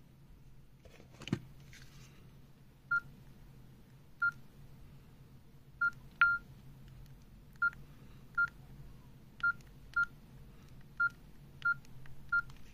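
Nokia N79 keypad tones: about a dozen short single-pitch beeps at irregular intervals as its keys are pressed to step through a menu, one a little longer and louder about six seconds in. A single knock about a second in.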